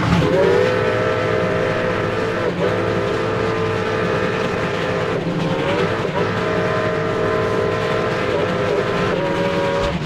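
Steam whistle of the 4-8-4 coal-fired locomotive #2101, a Reading T-1, sounding long blasts of several notes at once over the rumble of the running train. It slides up to pitch as it opens and dips and breaks a few times before it stops.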